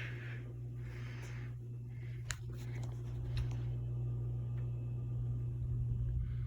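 CEC close-mount ceiling fan running in forward, its motor giving a steady low hum, with one faint click a little over two seconds in.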